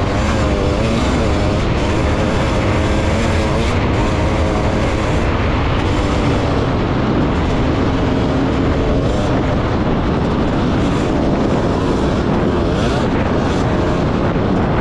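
Motors running steadily over a dense rushing noise, their pitch wavering up and down, most noticeably in the first few seconds.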